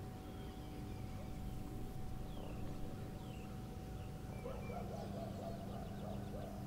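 Outdoor ambience: a steady low hum with a few faint, short bird chirps scattered through it.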